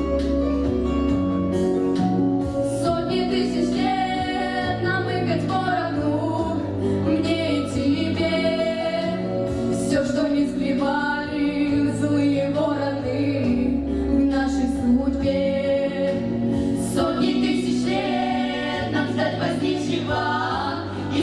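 A vocal group singing a song with instrumental backing, the voices blending in a choir-like sound over steady bass notes.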